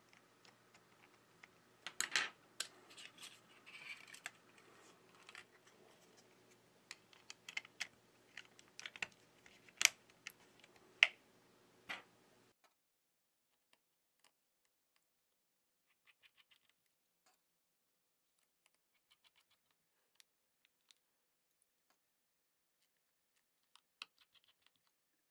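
Small sharp clicks and snaps of plastic parts and flex-cable connectors being pressed together as a Xiaomi Redmi 8 smartphone is reassembled, the sharpest about two, ten and eleven seconds in. After about twelve seconds near silence with a few faint ticks, one near the end as a tiny screw is driven in with a precision screwdriver.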